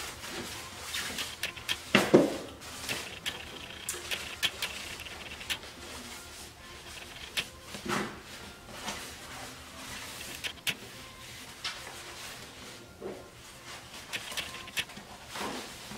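Scattered clicks, knocks and rustles of a plastic high chair seat and its cover pieces being handled and fitted together, with a few louder knocks, the loudest about two seconds in.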